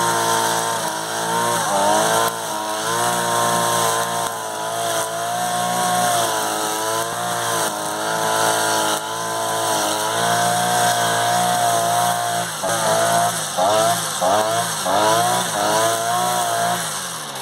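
Einhell GE-BC 43 AS two-stroke petrol brushcutter running at high speed as its nylon line cuts grass, the engine pitch wavering up and down. In the last few seconds the pitch dips and climbs back several times in quick succession.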